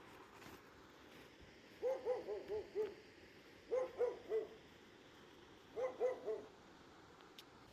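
A dog barking in three quick bouts, a few short barks each: five, then four, then three.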